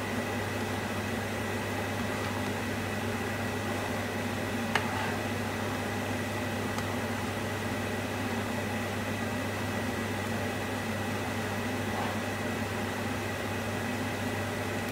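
Induction hob running with a steady electrical hum and a faint high whine while a spatula stirs thick sauce in a non-stick pan. The spatula taps the pan sharply once, about five seconds in.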